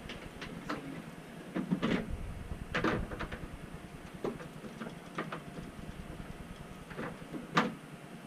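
Irregular knocks and clunks of hose fittings and parts being handled inside a boat's open deck locker, with the loudest knocks about two seconds in and near the end.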